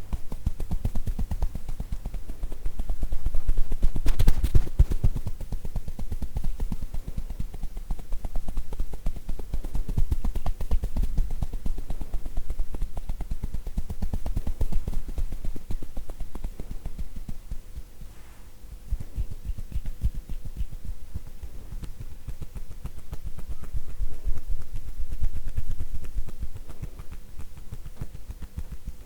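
Tapotement massage: hands striking rhythmically on a person's head, shoulders or back, a fast run of hollow, popping thuds many times a second. It eases off briefly a little past halfway.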